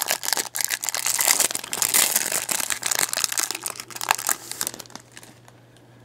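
Clear plastic wrapper of a trading-card pack crinkling as it is peeled off the cards and crumpled by hand, dying away about five seconds in.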